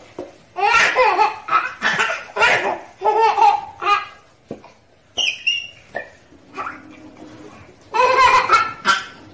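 Baby belly-laughing in repeated bursts of high-pitched laughter, with a short squeal about five seconds in and another round of laughs near the end.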